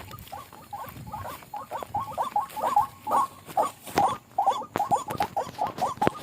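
White-breasted waterhen calls: a fast run of short, croaking 'ruak' notes, several a second, growing louder about two seconds in.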